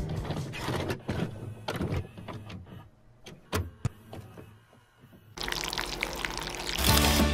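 Kitchen sounds: a few scattered clicks and knocks, then liquid pouring for about a second and a half, before music comes back in near the end.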